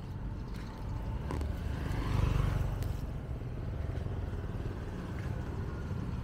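Street traffic: a small motorbike's engine passing close, loudest about two seconds in, over a steady low traffic rumble.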